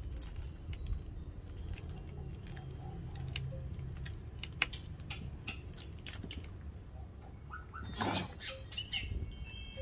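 Small knife cutting and scraping at the fibrous husk of a coconut, a scatter of sharp crackling clicks over a low steady background, with a louder scrape about eight seconds in.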